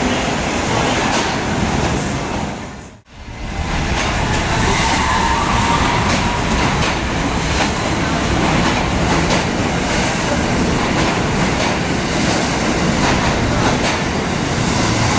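R68 subway train running along the platform: a steady rumble of steel wheels on rail with the click of rail joints. The sound drops out briefly about three seconds in, then the rumble of a train moving past picks up again.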